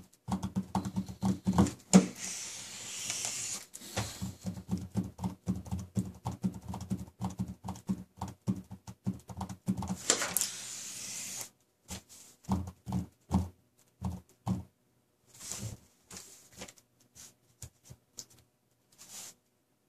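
Felt-tip marker tips, held between the fingers of both hands, tapping and scratching on a large sheet of paper. Rapid taps with a dull thud in each, with longer scratching strokes about two and ten seconds in; after about twelve seconds the taps become sparse and stop shortly before the end.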